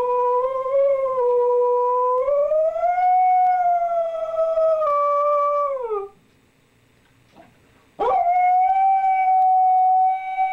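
Husky howling: one long howl of about six seconds that rises in pitch and falls away at its end, then after a pause of about two seconds a second, steadier howl begins.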